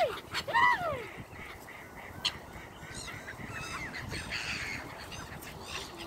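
Black-headed gulls calling around a feeding flock: two loud, harsh falling calls in the first second, then fainter scattered calls.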